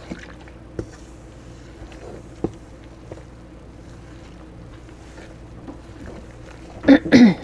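Wooden spoon stirring flour and water in a stainless steel bowl: faint scraping with a few light knocks of the spoon against the bowl. Near the end, a brief loud cry.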